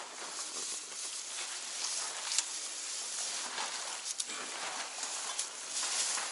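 Asian elephants sweeping and pulling at dry grass and hay with their trunks while feeding: a steady rustling with a few sharp crackles.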